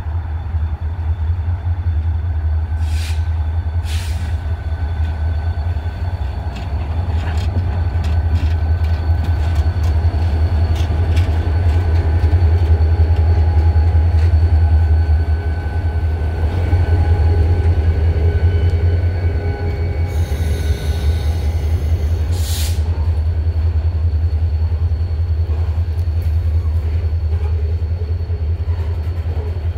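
Diesel freight train passing close by: the CSX locomotive's engine rumbles as it comes up and goes past, loudest about halfway through, then boxcars roll by with wheels squealing faintly and occasional sharp clanks.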